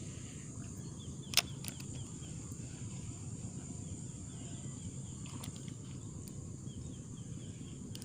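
Steady high-pitched insect drone over a low outdoor rumble, broken by a single sharp click about a second and a half in.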